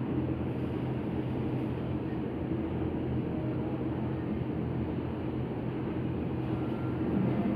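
Steady low mechanical rumble with a constant hum, from running machinery.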